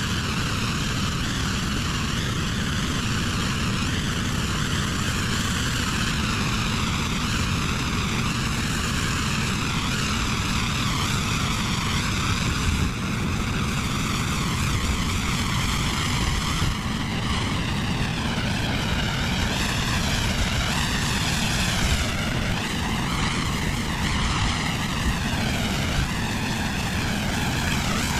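Pressure washer running, the steady drone of its engine under the hiss of the high-pressure water spray, which shifts in tone as the spray moves across the surface.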